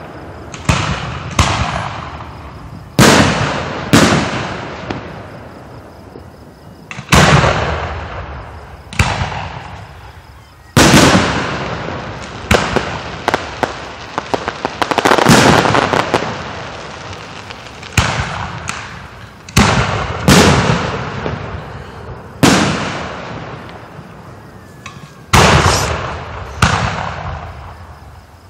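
Aerial fireworks shells bursting close overhead: a heavy bang every one to three seconds, each followed by a long echoing rumble, with a quick run of smaller pops about halfway through.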